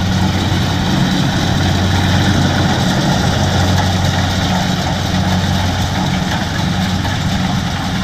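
Kubota DC70 combine harvester's diesel engine running steadily under load while the machine cuts and threshes rice, a constant low hum with little change in level.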